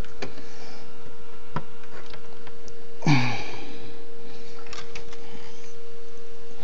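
Small scattered clicks and taps of a ribbon cable connector being handled and pressed onto the Ensoniq ASR-10 sampler's circuit board. A short breath comes about three seconds in, over a steady hum.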